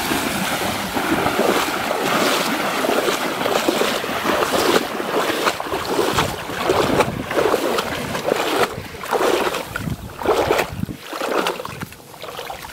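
Shallow floodwater splashing and churning as people run and wade through it: a continuous rush of splashing at first, then separate splashing surges, dying down near the end.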